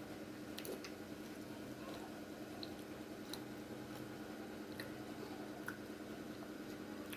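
Room tone: a steady low hum with a few faint, scattered clicks.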